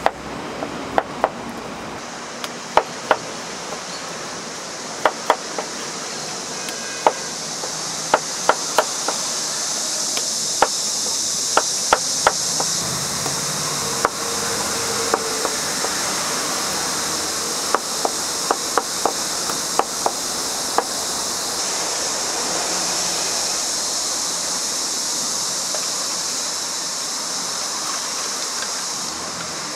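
Knife striking a cutting board as fruit is cut, in irregular sharp knocks, sometimes two or three close together, over a steady high-pitched hiss.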